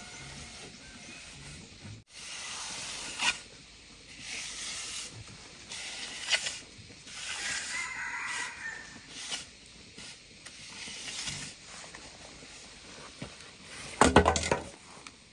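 Hoe scraping and pushing wet concrete along a shallow trench in a series of separate strokes, with a louder scrape and knock near the end.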